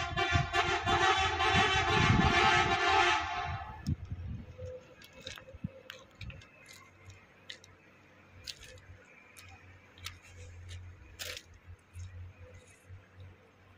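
A truck horn sounding one long, steady multi-tone blast that stops about four seconds in. After it come only faint scattered clicks and a low hum.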